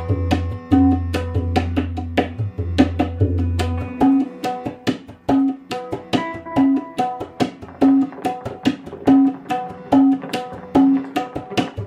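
Background music: quick, even percussion strokes with pitched drum notes over a low drone, which drops out about four seconds in and comes back near the end.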